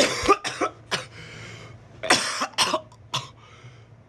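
A man coughing hard in two fits of short hacking coughs: three or four in the first second, then three more about two seconds in. The coughing comes from a long vape hit (a 'blinker') held through a spoken recitation.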